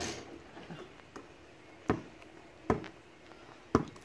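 A basketball strikes the hoop at the start, then bounces on an asphalt court three times, about a second apart, as it is dribbled.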